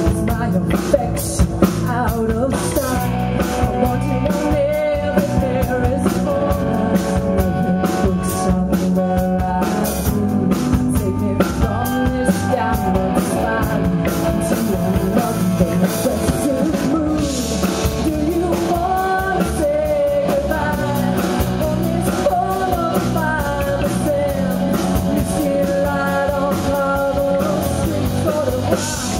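A rock band playing live: a singer's voice over electric guitar, electric bass and a drum kit with a steady beat.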